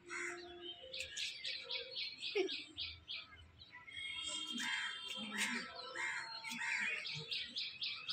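Birds chirping and calling, with a fast run of short high notes, about seven a second, starting about a second in, then more chirps through the second half.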